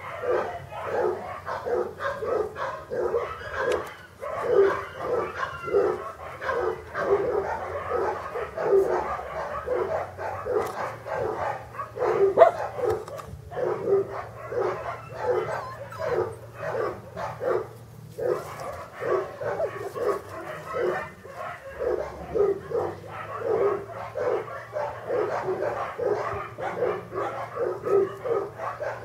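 English cocker spaniel puppies yipping and barking without a break, several short high yelps a second.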